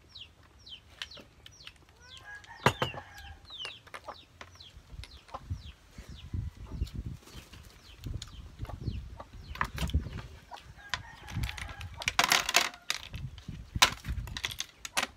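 Chickens clucking and chirping in the background, with short clicks of sea snail shells being handled and eating noises, loudest about twelve seconds in.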